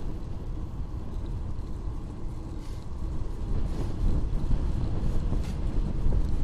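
Wind rushing over the camera microphone, with rolling tyre noise from a bicycle riding steadily at about 27 km/h on an asphalt cycle path.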